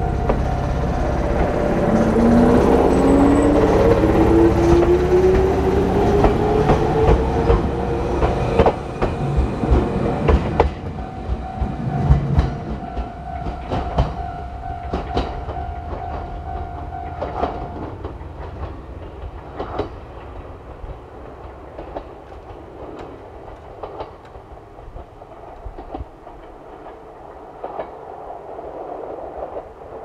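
Level-crossing warning alarm sounding while an electric train approaches, its motor whine rising in pitch over the first several seconds. From about a third of the way in, the wheels click rhythmically over rail joints as the train comes through. The alarm stops a little past halfway, and the wheel clatter fades away.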